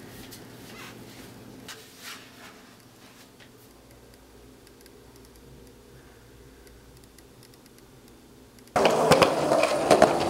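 Quiet room hum with a few faint clicks. About nine seconds in, the loud rolling of skateboard wheels on concrete starts abruptly, with sharp clacks of the board.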